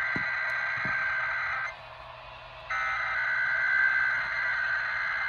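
Emergency Alert System SAME header data bursts, carried over a radio broadcast. Shrill, rapidly warbling two-tone digital chirps encode the start of a Required Weekly Test. The first burst ends about two seconds in, and a second identical burst starts about a second later.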